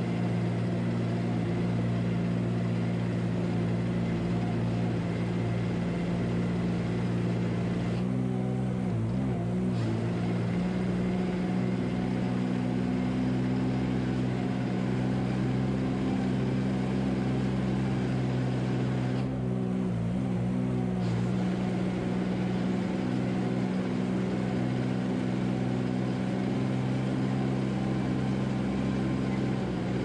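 An engine running steadily with a low, even drone, wavering briefly about eight seconds in and again about nineteen seconds in.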